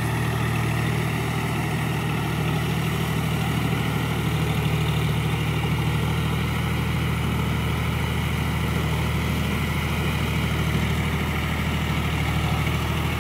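John Deere 5045D tractor's three-cylinder diesel engine running steadily under load while it drives a rotavator through wet mud for puddling.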